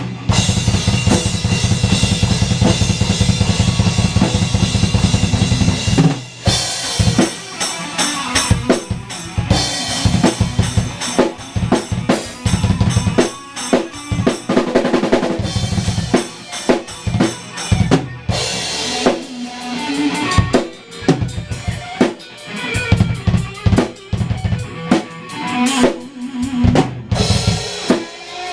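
A drum kit played live: bass drum, snare and cymbals. It keeps a fast, even pattern for about six seconds, then breaks into separate hits and fills.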